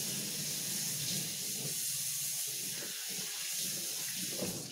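Kitchen tap running while hands are washed under it: a steady rush of water that stops near the end.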